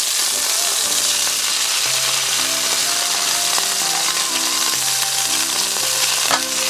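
Eggs frying in hot oil in a pan, a steady sizzle with spattering oil. A short sharp crack comes near the end as another egg is broken into the pan.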